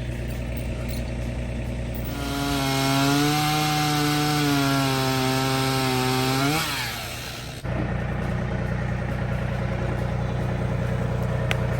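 A tractor engine idling, then a chainsaw revs up and cuts wood at full throttle for about four and a half seconds before its pitch drops off. After an abrupt change, the steady low idle of the tractor engine returns.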